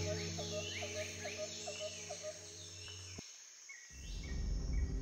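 Birds chirping in short repeated calls with insects, over a steady low hum, cutting off abruptly about three seconds in. A low rumble follows near the end.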